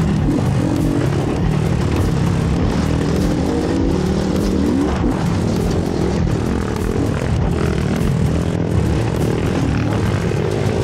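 Trail dirt bike engine running and revving, its pitch rising and falling.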